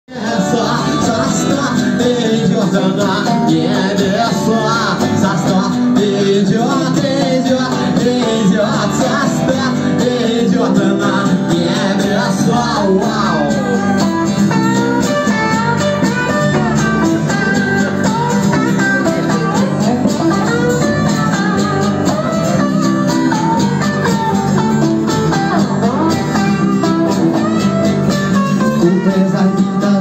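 Small live band playing: a strummed acoustic guitar and a second guitar keep up steady chords while a violin plays a sliding melody over them.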